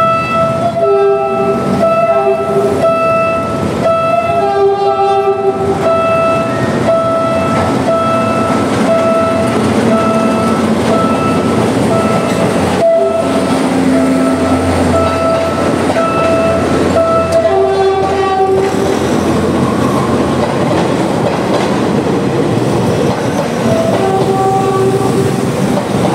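Philippine National Railways train sounding its multi-note horn several times: two short blasts about a second in, a longer one around 5 seconds, then more near 18 and 24 seconds. Under it a single-pitch beep repeats rapidly until about 17 seconds, while the train rumbles past with its wheels clacking over the rail joints.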